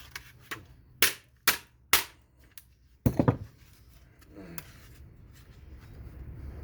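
Sharp plastic clicks and knocks from tools working on a modem's clipped plastic housing: a few irregular strikes in the first two seconds and a loud pair about three seconds in.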